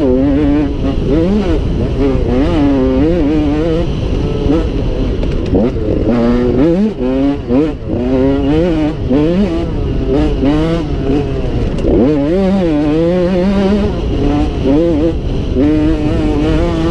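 Dirt bike engine under hard riding, its pitch rising and falling over and over as the throttle opens and closes. It eases off briefly about seven seconds in.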